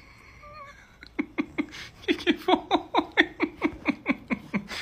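A person laughing in a quick, even run of short 'ha' syllables, each dropping in pitch, starting about a second in.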